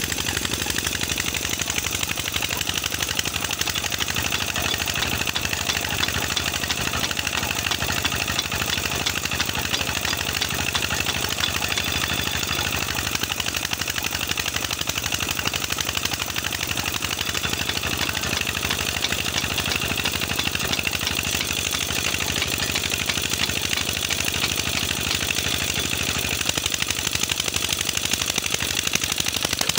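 Old 16 HP single-cylinder diesel engine running steadily with a fast, even beat, driving a tube-well pump by a flat belt.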